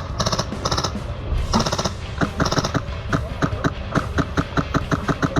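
Airsoft guns firing: a few short full-auto bursts of rapid clicks, then a steady run of shots about four a second from about two seconds in.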